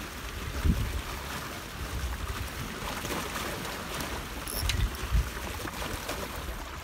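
Sea waves washing and breaking against a rocky shore, with wind buffeting the microphone in low rumbling gusts.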